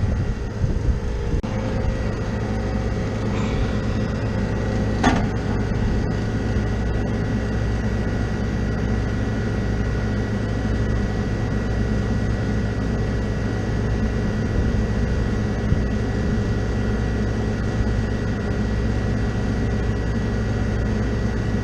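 Air-conditioning condensing unit's compressor running with a steady hum and a thin high tone, its condenser fan stopped, a sign that the system is very low on refrigerant. A brief click about five seconds in.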